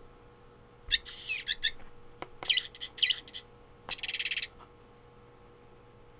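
GiGwi Melody Chaser plush bird cat toy's sound chip playing recorded bird chirps, set off as the toy is handled: three bursts of high chirping, about a second in, around two and a half to three and a half seconds, and at four seconds. A few light clicks of handling fall between them.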